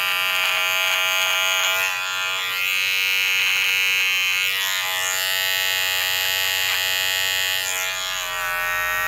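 Wahl G Whiz battery-powered hair trimmer running with a steady buzz as its blade is passed over stubble on the chin and jaw; the sound shifts a little a few times as the blade moves over the skin.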